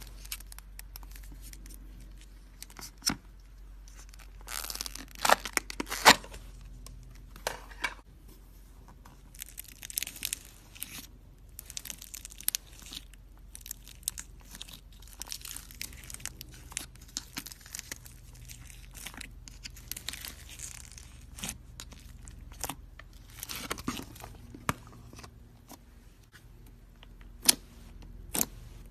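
Slime being squeezed and stretched by hand, giving irregular crackling pops and sharp clicks, with a louder flurry about five seconds in.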